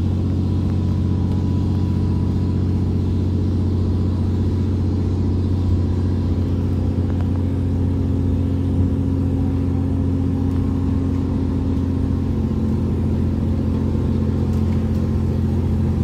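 Diesel railcar engine running steadily under a moving train, heard from inside the passenger cabin: a constant low hum whose pitch shifts slightly about twelve seconds in.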